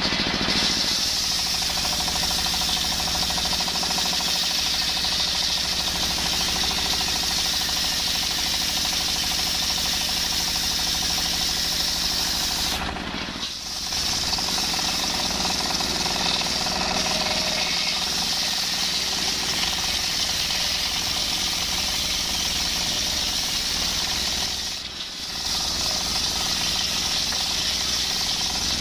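Single-cylinder stationary diesel engine running with a steady knock, driving a circular saw blade that rips lengthwise through a coconut log with a continuous high whine. The sound drops briefly twice, near the middle and a few seconds before the end.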